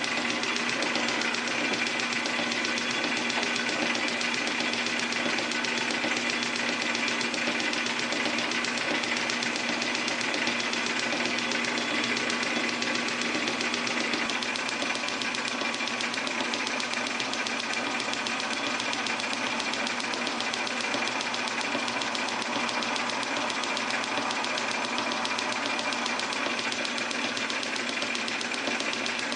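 Metal lathe running steadily, its spindle and drive turning a bar of stock while a cutting tool faces the end of the bar. A steady low hum in the machine noise drops away about halfway through.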